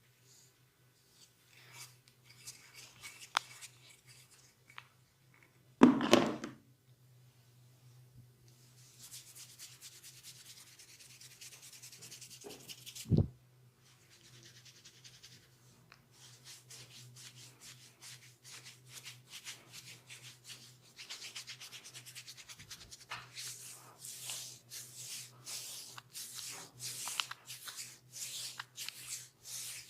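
Hands rubbing and scratching over skin and hair in a massage, growing denser in the second half and settling into quick strokes about two a second near the end. A loud thump about six seconds in and a sharp knock about thirteen seconds in stand out over a steady low hum.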